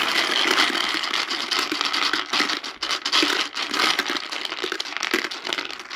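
The 36 letter cubes of a Super Big Boggle game rattling inside its clear plastic dome as the 6x6 grid is shaken: a loud, continuous clatter of many small clicks.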